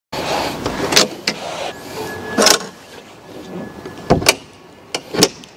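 A series of sharp knocks and clatters from the panels of a truck camper's fold-out side section being handled and moved, about half a dozen in all, over a rustle of movement.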